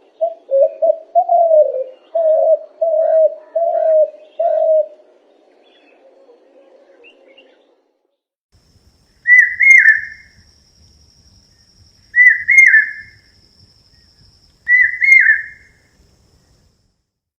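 Bird calls: a run of about six low notes in quick succession during the first five seconds, then, after a pause, three higher, short calls spaced a couple of seconds apart.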